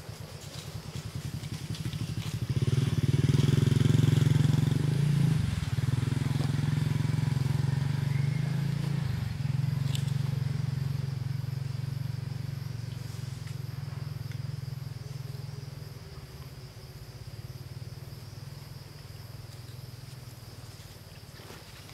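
A motor vehicle's engine going past: it swells about two seconds in, is loudest around four seconds, drops in pitch twice, and fades away over the following ten seconds.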